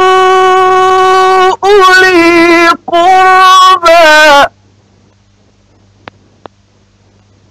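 A man's voice chanting Quran recitation in the melodic tajweed style, holding long sustained notes with small wavering ornaments and two brief breaks for breath. The chant ends a little over halfway through, leaving only a faint low hum from the old recording and two soft clicks.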